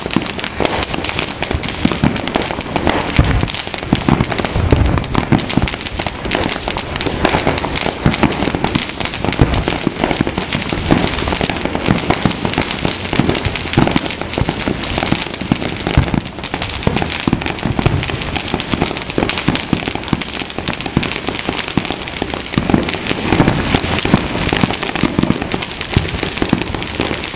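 Dense, unbroken barrage of fireworks and firecrackers: rapid overlapping pops and bangs with no let-up.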